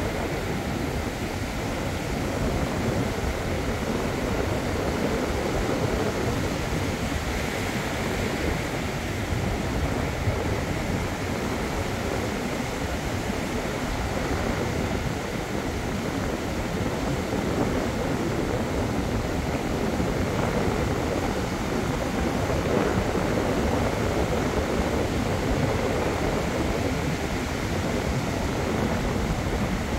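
Ocean surf breaking and washing up over the shallows in a steady rush, with wind rumbling on the microphone.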